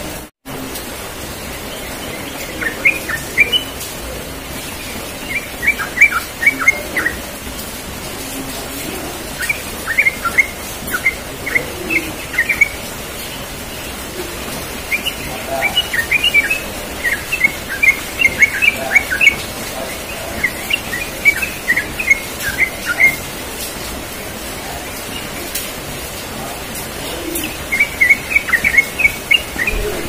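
Yellow-vented bulbul singing in short bursts of rapid, tumbling chirps, the quick run that bird keepers call ropel. There are about six phrases of one to four seconds each, with pauses between them, over a steady background hiss. The sound cuts out for a split second just after the start.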